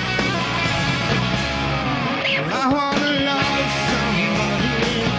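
Rock music with electric guitar. The bass drops away for about a second a couple of seconds in, under sliding guitar notes, then the full band comes back.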